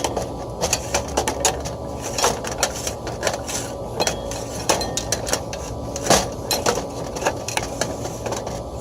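Irregular metal knocks and clanks, many sharp strikes at uneven spacing, from tools working at a stuck exhaust-fan motor, over a steady low hum.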